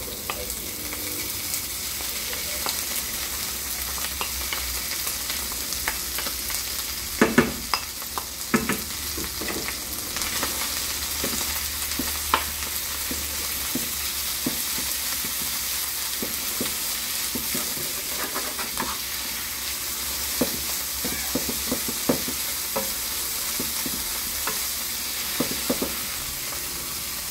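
Tuna and onions frying in a non-stick pan with a steady sizzle, while a wooden spoon stirs and scrapes the mixture, giving scattered knocks against the pan.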